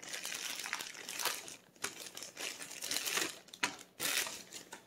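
Plastic packaging crinkling and rustling in irregular bursts as it is handled.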